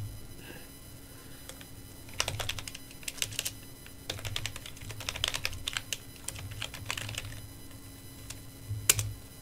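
Typing on a computer keyboard: short runs of key clicks with brief pauses, and one louder keystroke near the end.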